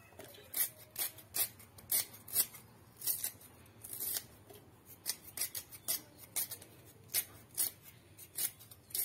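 Knife slicing through young lemongrass stalks held in the hand over a stainless steel blender jug: a crisp cut about twice a second, unevenly spaced.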